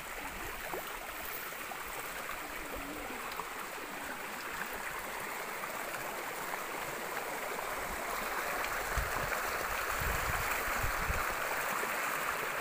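Mountain stream's water rushing steadily, growing a little louder in the second half, with a few low thumps around nine to eleven seconds in.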